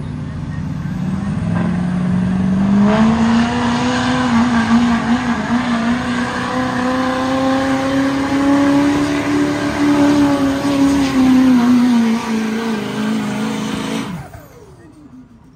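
Pulling vehicle's engine at full throttle during a pull. It revs up over the first few seconds, holds a high wavering note for about eleven seconds, and stops abruptly about fourteen seconds in.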